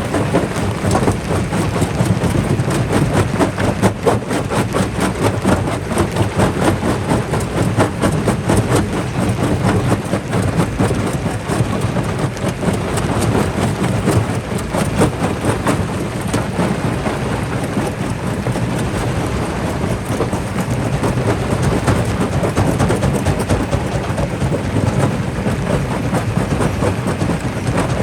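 Jaw rock crusher crushing rock: a steady, heavy mechanical rumble under rapid, dense knocking and cracking of stone.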